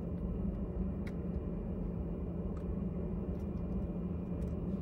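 Steady low hum of a running car heard inside the cabin, with a couple of faint clicks as a plastic sauce holder is clipped into the dashboard air vent.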